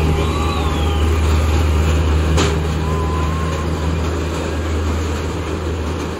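Steady low mechanical hum of a running fairground ghost-train ride, with a few faint high squeals and one sharp click about two and a half seconds in.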